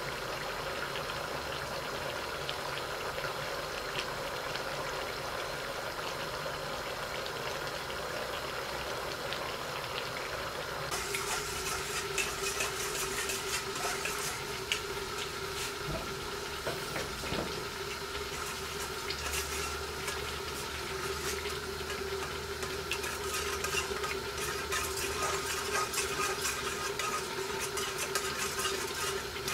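Duck karahi cooking under a lid on a gas flame: a steady bubbling hiss. About eleven seconds in, the sound changes and sharp crackles and spits join the hiss.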